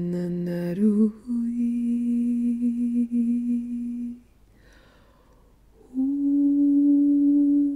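A woman humming slow, wordless held notes, stepping between low pitches in the first second or so. After a pause of nearly two seconds she holds another long, steady note.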